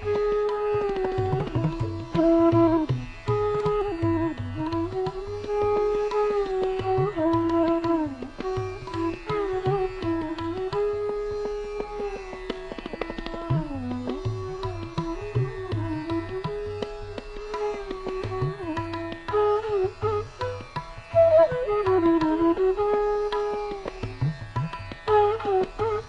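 Instrumental background music in an Indian classical style: a single melody line that slides between notes over steady drum strokes.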